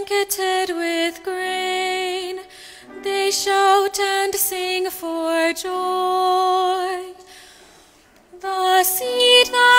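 A woman cantor singing the responsorial psalm solo: long held notes with vibrato. The singing fades about seven seconds in and resumes about a second later.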